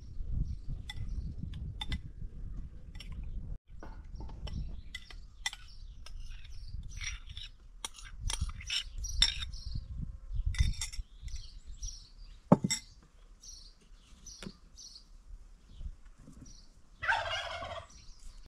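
Small birds chirp throughout, over a low wind rumble on the microphone. A single sharp clink comes about two-thirds of the way in. Near the end a farmyard fowl gives one loud, rattling, gobble-like call.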